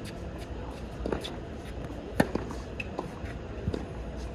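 Tennis ball impacts on a hard court: several sharp hits of racket strings on the ball and ball bounces, the loudest a little past the middle, over a low steady background.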